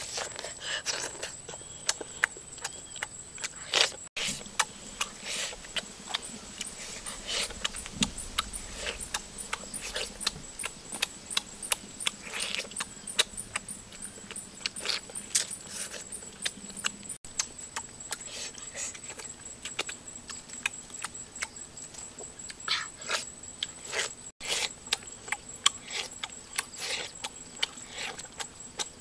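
Close, wet chewing and lip-smacking of someone eating grilled pork rib off the bone with their hands: irregular smacks and clicks several times a second.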